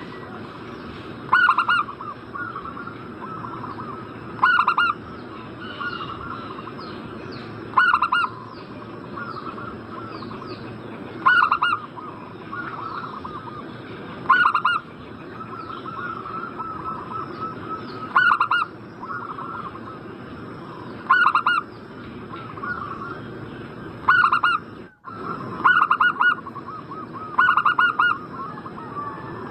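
Zebra doves (perkutut) cooing: short loud phrases of rapid stuttering coo notes about every three seconds, with softer cooing in between.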